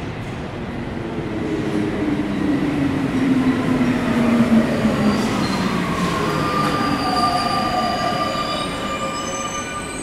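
A Paris Métro train pulling into a station: running noise that builds and then eases. Its whine falls in pitch as the train brakes, and high wheel squeals join over the second half.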